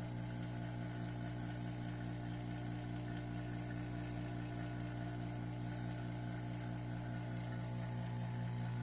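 Steady electrical hum of running metal-casting equipment, with a faint even pulsing in one of its tones and no change throughout.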